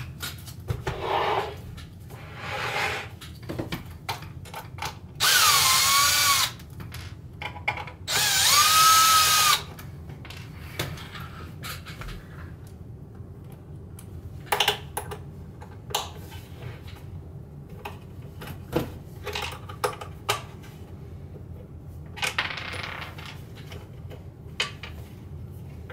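Milwaukee cordless drill-driver backing bolts out: two runs of a second or so each, about five and eight seconds in, with the motor pitch gliding up and down, plus a few shorter runs. Small metallic clicks and clinks of the bolts and parts being handled come in between.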